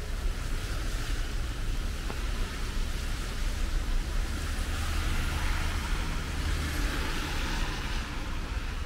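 Heavy rain falling on a wet street, a steady hiss over a low rumble, with tyre noise from traffic on the wet road swelling about five seconds in.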